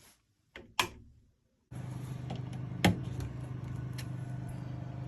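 Two sharp clicks, then a steady low hum that starts abruptly and carries on, with one loud click about a second after it begins.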